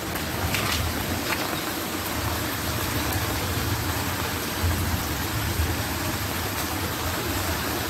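Rain falling steadily: a dense, even hiss with a low rumble underneath.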